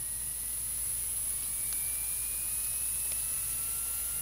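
Small brushed DC motor from a paintball hopper, run by Raspberry Pi PWM, whining with a pitch that rises slowly as the duty cycle ramps up. A second, lower whine joins past the middle, over a steady high hiss.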